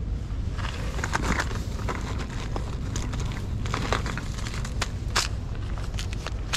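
Hands rummaging through fishing gear and bags: plastic packaging crinkling and rustling and a clear plastic tackle box handled, in a string of short rustles and clicks over a low steady rumble.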